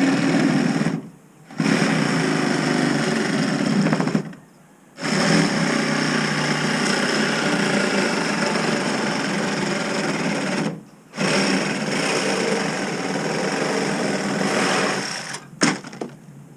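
A power tool motor running in long stretches. It stops briefly about a second in, again near four and a half seconds, and again near eleven seconds, then cuts out near the end.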